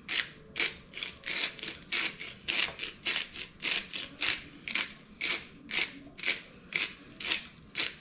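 Pepper mill grinding black pepper in quick, even twists, about two and a half scratchy crunches a second.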